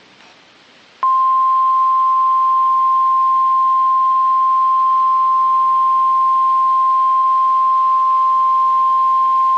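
NOAA Weather Radio 1050 Hz warning alarm tone: one loud, steady, single-pitched tone that starts abruptly about a second in, after faint radio hiss. It signals that a warning message is about to be broadcast.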